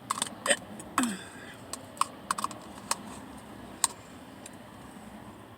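Plastic spoon clicking and scraping against a plastic parfait cup as the last of the parfait is eaten: scattered sharp clicks at uneven intervals.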